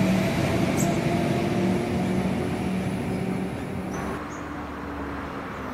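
3000 class diesel railcar moving off down the line, its steady engine hum and rail noise fading as it goes. The sound drops to a quieter hum about four seconds in.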